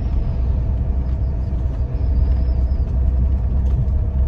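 Steady low road and engine rumble inside the cab of a moving RV, with a faint constant whine above it.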